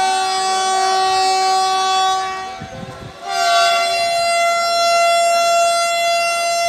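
Train horn sounding two long, steady blasts. The first stops about two seconds in, and after a short gap a second, higher-pitched blast starts and is held for several seconds.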